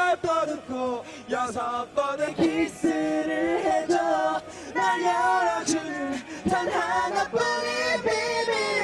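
Young men singing a Korean song together, unaccompanied, in short phrases.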